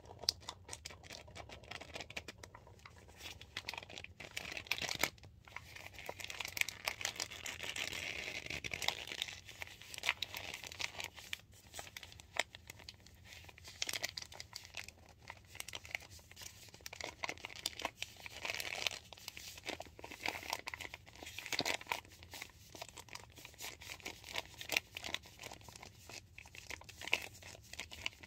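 Crinkling and rustling of a cornstarch box's inner bag as it is squeezed and shaken in the hands to pour the powder into a plastic tub: a steady run of small crackles with short pauses.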